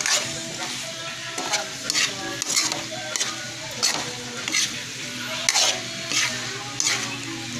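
Metal spatula stirring and scraping sautéed bitter gourd around a metal wok, about two scrapes a second over a steady sizzle.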